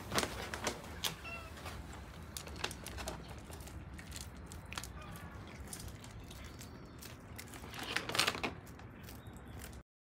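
A cat meows briefly a couple of times amid small clicks and scuffs of cats eating dry food from a metal tray, with a louder rustle near the end; the sound cuts off suddenly just before the end.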